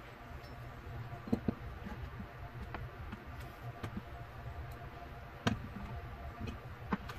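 A chef's knife cutting fudge on a plastic cutting board: scattered light taps and clicks of the blade meeting the board, with a few sharper knocks, about a second and a half in and twice more near the end, over a faint low hum.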